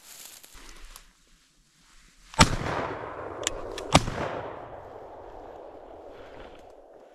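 Two shotgun shots about a second and a half apart, fired at a woodcock flying overhead. Each shot echoes and rolls away through the forest, and two smaller sharp clicks fall between them.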